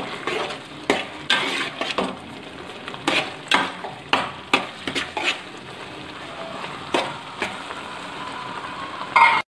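Metal spoon stirring in an aluminium pot, knocking and scraping against the pot at irregular intervals, over a steady sizzling hiss from the pumpkin and jaggery-syrup mixture cooking on the heat.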